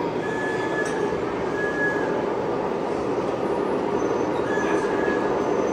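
Model train running along a layout's track over steady running noise, its wheels giving a thin, high-pitched squeal a few times.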